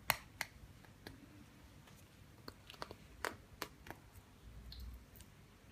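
Scattered small sharp clicks and taps of a phone LCD panel and its tight-fitting frame being handled and worked loose, a few near the start and a cluster in the middle.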